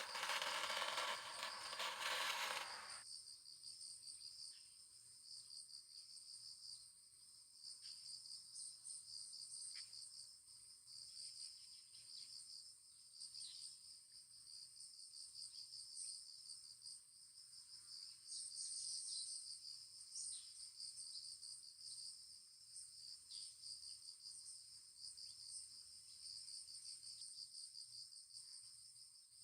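Crickets trilling steadily in a continuous high, pulsing chorus, with faint scattered ticks beneath. A louder hiss covers the first three seconds and cuts off suddenly.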